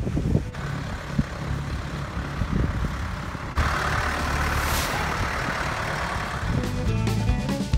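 John Deere tractor with a front loader, engine running as it drives past, louder from about three and a half seconds in. Music starts near the end.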